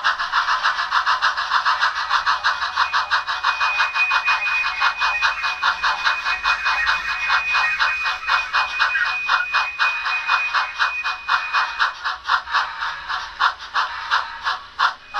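Digital steam-locomotive sound from a Tsunami sound decoder in a Bachmann On30 steam locomotive, played through the model's small speaker: rapid, even exhaust chuffs with a thin steady high tone through the middle. The chuffs spread out near the end as the locomotive slows.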